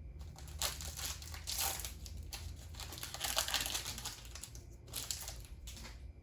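Foil wrapper of a Dragon Ball Super Card Game booster pack crinkling as it is torn open and handled, loudest about halfway through.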